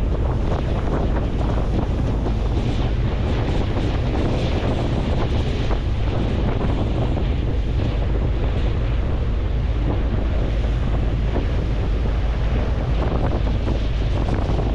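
Wind buffeting the microphone over the steady rush of water and engine rumble of a moving ferry.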